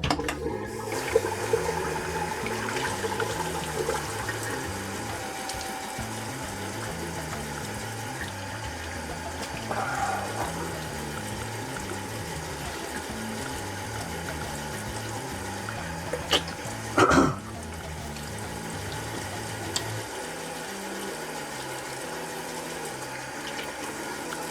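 Tap water running steadily into a sink, with a couple of short clatters about two-thirds of the way through. Soft background music with a stepping bass line underneath, which stops near the end.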